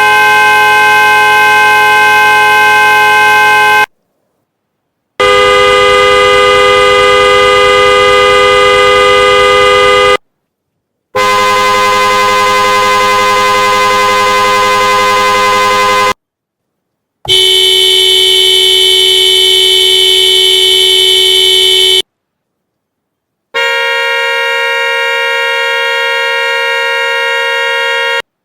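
Five different car horns in turn, each held down in one long, steady blast of about five seconds with a chord of tones, cut apart by short silent gaps. Each horn has its own pitch, and the last is higher and buzzier.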